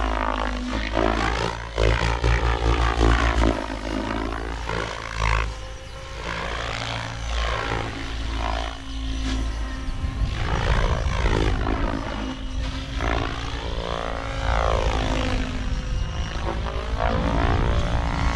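XLPower Specter 700 V2 electric RC helicopter in aerobatic flight. Its rotor drone and tail-rotor whine rise and fall in pitch again and again as it manoeuvres and passes.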